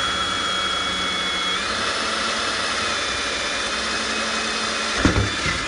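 Dremel rotary tool with a carbide burr grinding out a crack in a cast aluminum wheel: a steady high-pitched whine over a grinding hiss, with a short knock about five seconds in before the tool stops just before the end.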